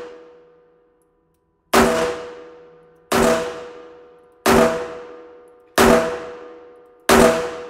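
Taurus 856 Ultra-Lite snub-nose revolver firing .38 Special rounds: five shots about a second and a third apart, each ringing and echoing in an indoor range booth.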